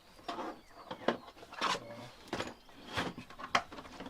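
A series of short clicks and knocks, about six, spread unevenly, as lawn mower parts are handled and fitted together during assembly.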